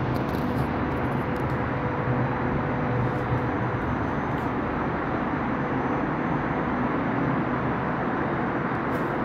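Steady outdoor noise of wind mixed with the hum of distant city traffic, an even rush with a low drone under it that does not change.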